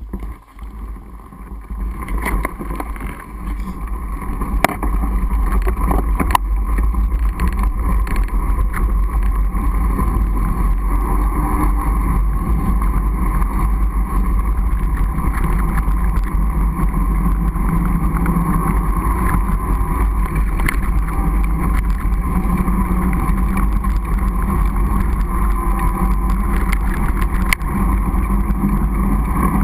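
Fatbike riding on a snow-covered road: steady rumbling noise of wind on the microphone and wide tyres rolling over snow, with scattered clicks and knocks from the bike. It is quieter for the first couple of seconds, then holds steady.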